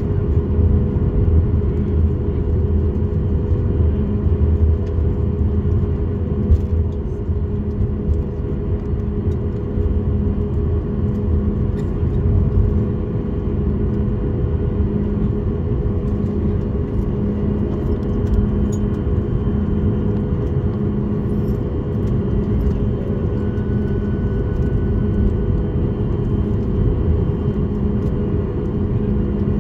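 Cabin noise of a taxiing Boeing 737 MAX 8: its CFM LEAP-1B engines run at taxi power in a steady drone with a low rumble and a constant hum.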